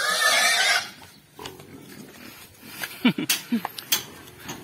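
A domestic pig squeals loudly for about the first second while being herded for loading. After that come a couple of short, falling grunts and scattered knocks.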